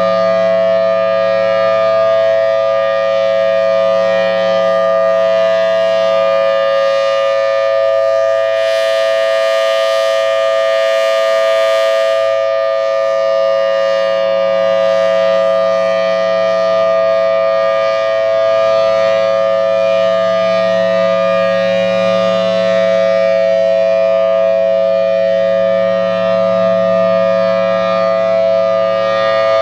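Federal Signal Thunderbolt 1000T outdoor warning siren sounding its steady alert signal: a loud held chord of two close tones that swells and fades gently as the rotating head sweeps round. A brief rush of hiss joins it about nine seconds in.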